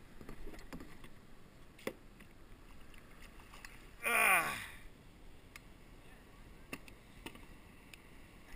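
Faint water lapping around a kayak, with a few light knocks. About four seconds in comes a short wordless cry, falling in pitch.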